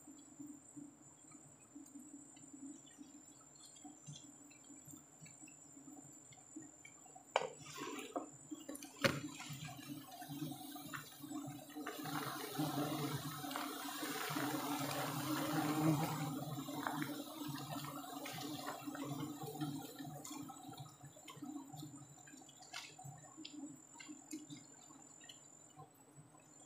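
Knife cutting into a wild giant honey bee (Apis dorsata) comb: wet squishing and tearing of honey-filled comb that swells to its loudest in the middle, after two sharp clicks. A low hum of bees runs underneath.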